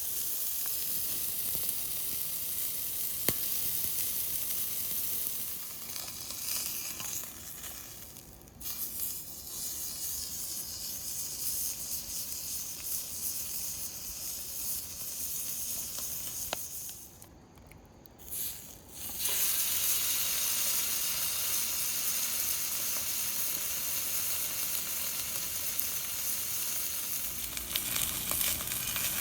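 Food sizzling as it fries: a steady hiss that dips briefly twice, with an occasional sharp pop.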